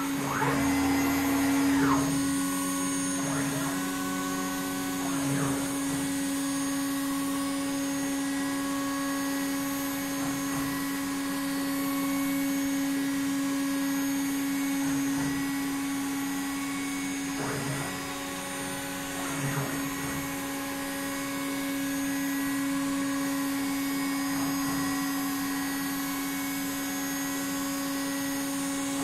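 CNC router running with nothing to cut: the spindle, run at 20,000 rpm, gives a steady hum, and the axis motors whine up and down in pitch each time the gantry speeds up and slows down.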